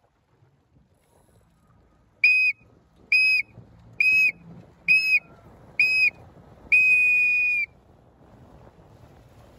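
Race start signal: five short, loud, high whistle-like blasts about a second apart, then one long blast of about a second, the final countdown marking the start. Faint wind and water noise underneath.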